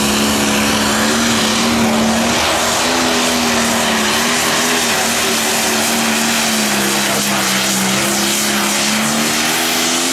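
John Deere light pro stock pulling tractor's turbocharged diesel engine running flat out under load as it drags the weight transfer sled. The engine note stays loud and nearly steady, wavering only slightly in pitch.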